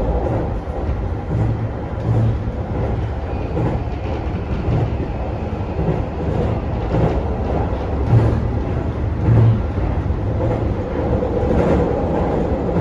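Toei 5500 series electric train running, heard from inside the car: a steady low rumble of wheels on rail with irregular dull thumps from the track.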